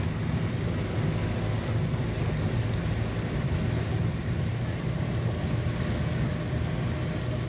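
Car engine running at a steady cruise with tyre noise on a wet road, heard from inside the car: an even low hum under a steady wash of noise.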